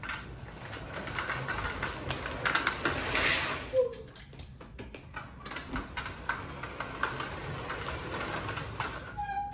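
Drift trike riding across a smooth hard floor: its wide hard-plastic rear wheels roll and skid with a continuous rattling clatter of many small clicks, loudest about three seconds in.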